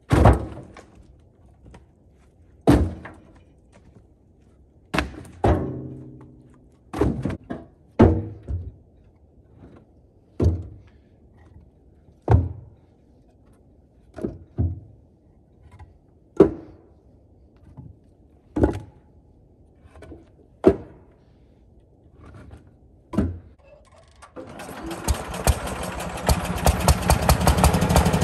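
Split firewood logs tossed one at a time into a metal dump cart, about twenty separate thunks a second or two apart. About four seconds before the end, the garden tractor's original 14 hp single-cylinder engine starts and runs, getting louder.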